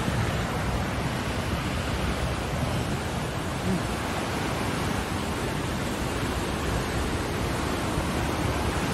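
Swollen, silt-laden river in flash flood rushing past: a steady, even rush of churning water.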